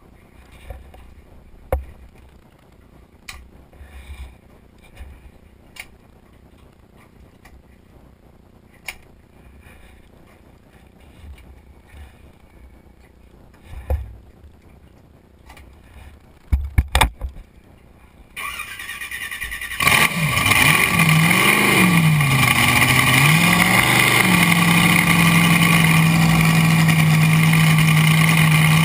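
Blown (supercharged) drag-hydro engine being started: a few clunks in the cockpit, then the engine cranks over, catches, revs unevenly for a few seconds and settles into a steady, loud idle.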